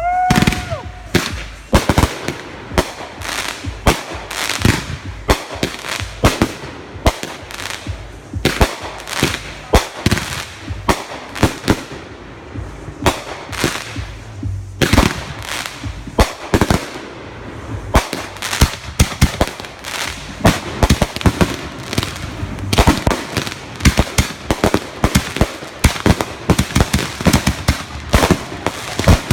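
Backyard consumer fireworks going off in a long, rapid string of bangs and crackles, thickest in the second half. A short whistle sounds right at the start.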